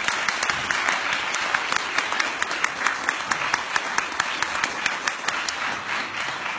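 Audience applauding, many hands clapping at an even level.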